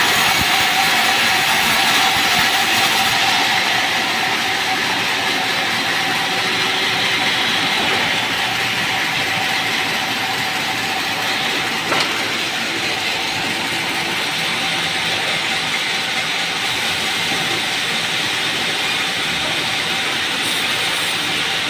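Sawmill band saw running: a loud, steady mechanical din with a high tone in it that eases after the first few seconds. One sharp knock about twelve seconds in.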